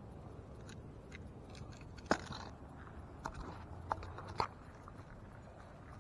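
Faint handling and movement noise near the microphone: scattered small clicks and crunches, with four sharper clicks in the middle.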